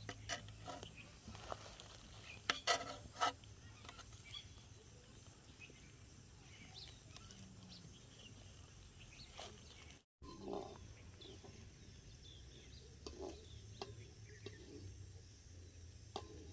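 Quiet outdoor background with a low steady hum, and a few sharp clinks about three seconds in from a metal spoon against a ceramic plate as yogurt is scooped onto it.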